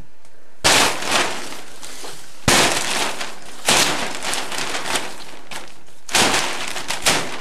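A blunt machete hacking at plastic sheeting hung over a doorway: four sharp hits, each followed by the plastic crinkling and rustling.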